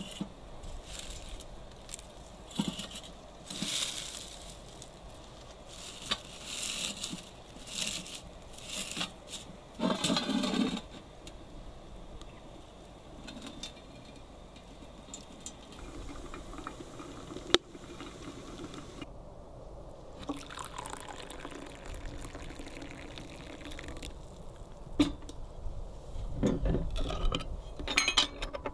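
Water being poured into a vessel in several spells, the longest about ten seconds in and another near the end, with a single sharp click about two thirds of the way through.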